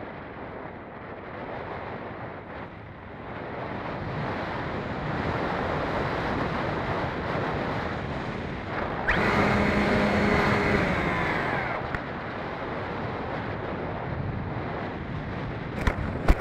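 Airflow rushing over the onboard camera of a Phoenix 2400 RC electric motor glider in flight, growing louder about four seconds in. Midway the electric motor and propeller run for about three seconds as a steady whine, and a sharp knock comes near the end.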